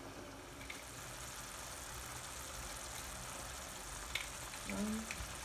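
Beef curry masala sizzling and simmering steadily in an uncovered pan as its liquid cooks down, with a few light clicks near the end.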